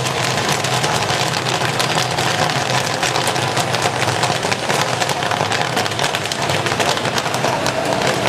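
Commercial stainless-steel popcorn kettle popping a batch of corn: a dense, rapid, irregular crackle of kernels bursting over the machine's steady hum.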